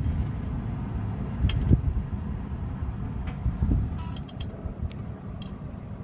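Several sharp clicks over a steady low rumble: a relay clicking on the HVAC unit's control board as thermostat wires are connected one at a time. The click comes from the board's blower signal circuit, which the technician takes as a bad sign of a fault on the board.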